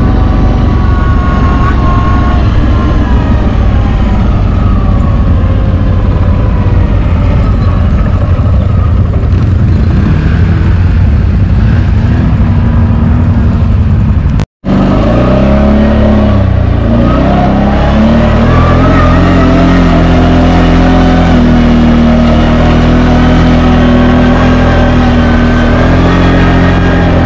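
CFMoto X8 ATV's V-twin engine running under way, heard loud from the rider's seat with a rough, noisy rumble. It drops out for an instant near the middle at a cut, then comes back with the revs rising and falling before settling to a steady pitch.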